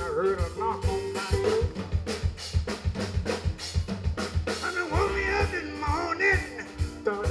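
A live band playing an instrumental stretch of a song: a drum kit keeps a steady beat of kick and snare under keyboard and guitar, with a lead line of bending notes growing stronger about five seconds in.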